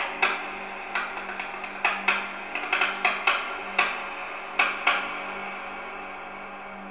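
A run of sharp knocks or taps, irregular at about two to three a second, stopping about five seconds in, over a steady low hum.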